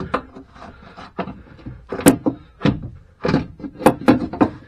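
Irregular metal knocks and clunks as a new front lower wishbone for a Vauxhall Corsa C is worked into its mountings under the car, with several sharp knocks, loudest about two and four seconds in.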